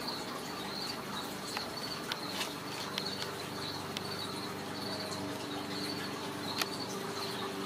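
Insects chirping in a steady, high-pitched pulsing rhythm, with a few sharp taps and clicks scattered through. The loudest tap comes about two-thirds of the way in.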